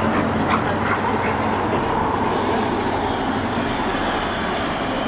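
Steady rumbling background noise with a low hum, with a few faint brief sounds in the first second or two.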